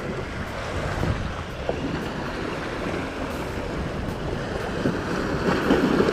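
Sea waves and surf washing steadily, with wind buffeting the microphone.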